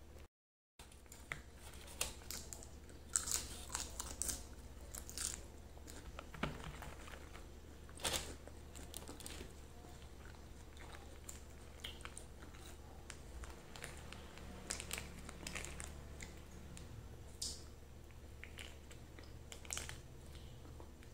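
Close-miked eating sounds: irregular clicks and crackles of grilled chicken and side dishes being torn apart by hand and chewed, over a steady low hum.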